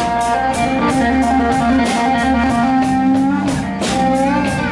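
Live slow blues band: a Fender Stratocaster electric guitar plays a fill of held notes between sung lines, over electric bass and a drum kit.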